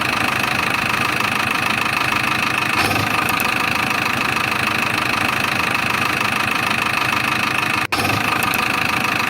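Toy minicars running: a steady, dense mechanical whirring and rattling with a constant high whine, cutting out for an instant about eight seconds in.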